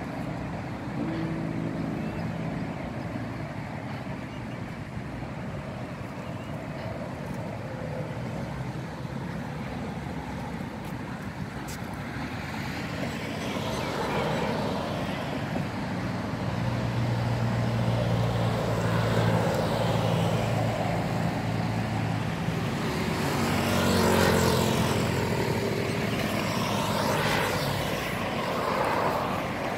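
Motor vehicles passing on a road: a steady traffic rumble that grows louder from about halfway through, with engine hum from vehicles going by close several times.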